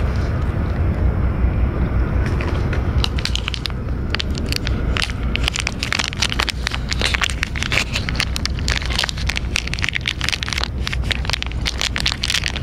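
Stray cats eating close to the microphone: rapid, irregular wet chewing and smacking clicks that start a couple of seconds in, over a steady low rumble.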